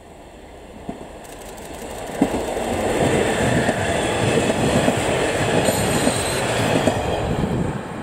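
JR East KiHa 48 diesel railcar set approaching and passing close by. Its running noise grows steadily louder over the first few seconds, then holds as a loud rumble with wheels clicking over the rail joints as the cars go past.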